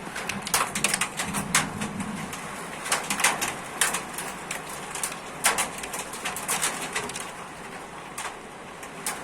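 Hailstones hitting hard, in many sharp, irregular clicks and knocks over a steady hiss of heavy rain.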